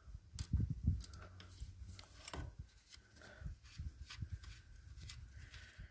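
Light irregular clicks, scrapes and thumps of a wrench and hands on a bicycle, loosening the bolts that hold the wheel.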